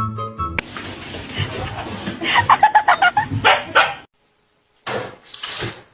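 A dog barking, a quick run of sharp barks about two seconds in, with two more short bursts of sound near the end.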